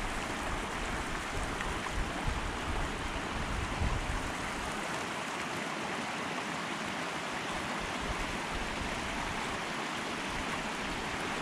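A small mountain creek's water running steadily, an even rushing hiss. A low, uneven wind rumble on the microphone during the first half.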